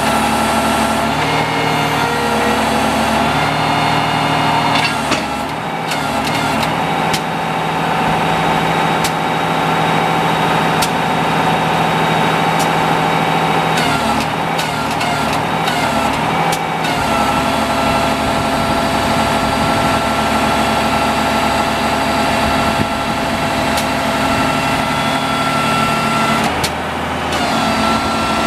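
Diesel engine of a 1989 Unimog FLU419 SEE tractor running steadily, its note shifting a few times as the load changes.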